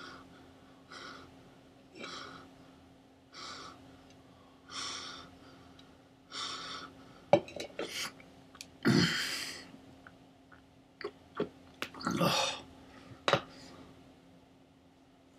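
A man breathing in short, heavy gasps, about one every second and a half, under a faint steady hum. From about halfway on come several sharp clicks and two louder, longer outbursts of breath.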